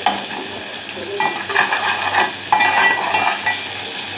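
Sliced onions sizzling in hot oil in an aluminium pot, gently sautéed to soften them. A metal fork stirs them, scraping and clinking against the pan in two bouts.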